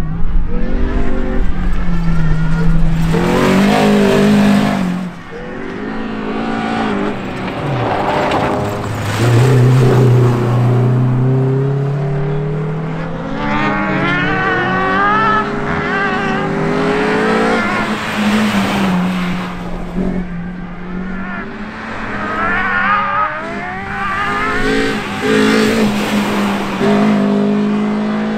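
First-generation BMW MINI rally car driven flat out: the engine revs climb through the gears, drop on each lift or shift, and climb again, repeatedly. Tyres squeal through the corners at times.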